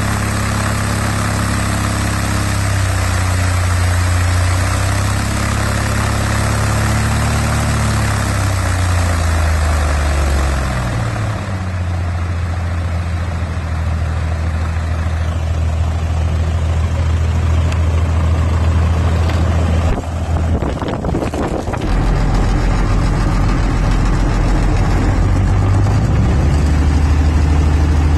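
Jabiru 3300 six-cylinder aircraft engine with Rotec liquid-cooled heads, driving its propeller on the ground during its first test run. Its speed wavers, then drops to a steady lower idle about ten seconds in, with a brief rough patch around twenty seconds in.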